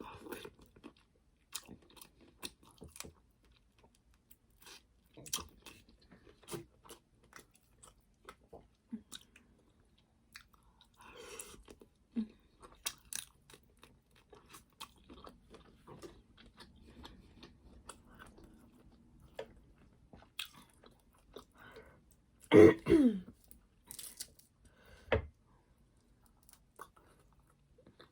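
A person eating seafood: wet chewing with many short crisp crunches and clicks. About three-quarters of the way in comes the loudest sound, a brief pitched voiced noise from the eater that falls in pitch, followed a couple of seconds later by a low thump.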